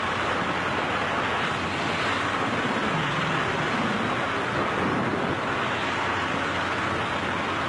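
Steady rush of wind over the microphone, the airflow of a skydiver's freefall.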